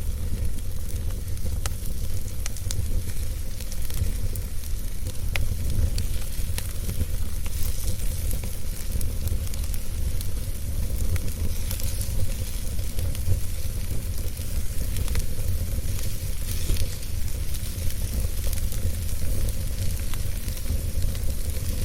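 Wood fire burning in a fireplace: a steady low rumble and soft hiss with scattered crackles and small pops of burning logs.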